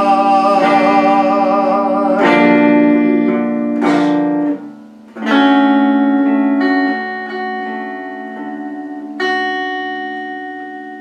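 Hollow-body electric archtop guitar playing the closing chords of a slow waltz. There is a brief break about four and a half seconds in, then a chord is struck and left ringing, with one more chord about nine seconds in fading out slowly.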